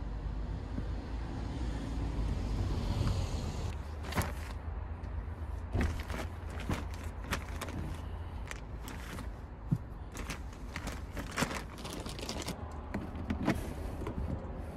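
Belongings being shifted around in the back of a car: a rustle of fabric and bag, then a string of light knocks and clicks as things are handled and set down, over a steady low rumble.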